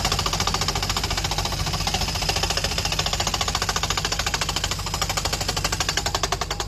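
Excavator machinery making a rapid, even hammering, many strokes a second, over a low engine hum.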